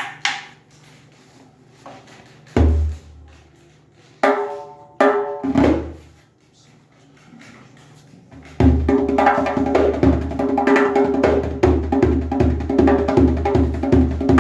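A 12-inch Aria Percussion djembe played by hand: a few separate strokes, deep bass hits among them, then from about eight and a half seconds in a steady rhythm of bass and higher, crisper strokes, about three a second.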